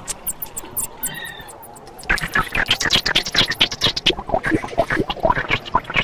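Tom Oberheim Two Voice Pro analog synthesizer making animal-like sound-design noises: sparse high clicks and a short falling chirp, then from about two seconds in a louder, dense stream of rapid chirps and clicks.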